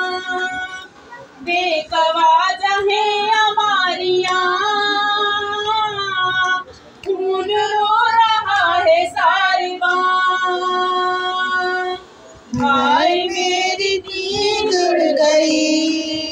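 A noha, a Shia mourning lament in Urdu, sung unaccompanied by a high solo voice. It goes in long held, wavering phrases with short breaks between them.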